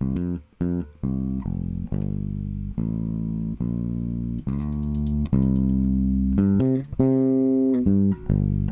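Electric bass guitar playing a line of plucked, held notes, each sustained at a fairly even loudness. It is being compressed hard by a Slate Digital FG-2A optical compressor plugin.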